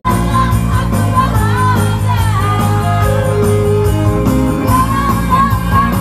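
Live band music played through a PA: a male singer on microphone over keyboard, bass and a steady drum beat, with women in the crowd singing along and shouting.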